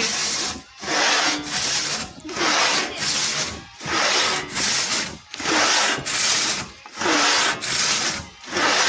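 Two-man pit saw cutting through a timber log, its long steel blade rasping through the wood in steady push-pull strokes, about four strokes every three seconds.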